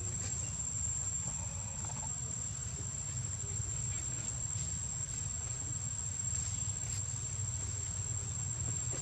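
An insect, such as a cricket, singing one steady, unbroken, very high-pitched note over a constant low rumble.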